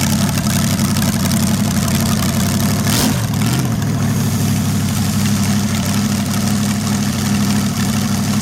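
Large engine running at a loud, steady idle, just after starting up.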